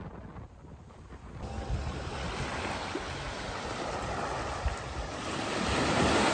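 Wind buffeting the microphone over a rush of sea water. The noise jumps up about a second and a half in and keeps building toward the end.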